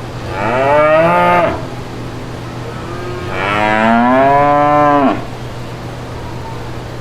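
Cow mooing twice: a short moo rising in pitch, then a longer one about three seconds in, over a steady low hum and hiss.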